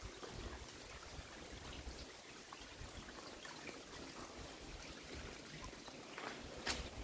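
Faint trickling water in a wet rock crevice, with a few soft taps near the end.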